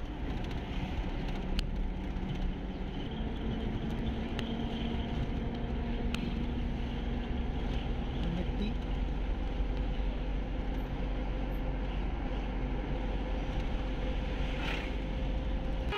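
Steady road and engine noise heard inside a moving car's cabin: a low rumble with a faint, even hum and a few light clicks.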